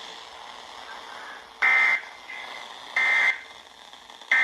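Three short, loud, buzzing data bursts of an Emergency Alert System SAME header from a NOAA Weather Radio, about a second and a half apart, over a steady radio hiss. They mark the start of a new alert, here a severe thunderstorm warning.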